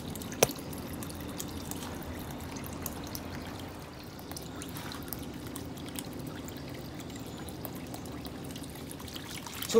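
Water trickling from the top of an 80 cm PVC pipe fed by a small aquarium submersible pump and splashing into a tub of water. The pump has too little power to lift the water that high, so only a weak trickle comes out. A single sharp click about half a second in.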